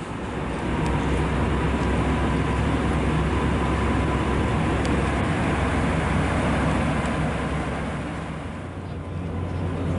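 Diesel locomotive engine idling steadily, a constant low rumble with a faint steady whine above it; the sound dips and changes slightly near the end.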